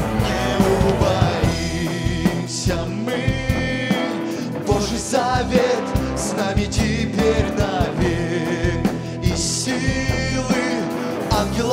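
Live worship band playing a rock-style passage between sung verses, with drum kit and electric guitar, and wordless, wavering held notes sung or played over it several times.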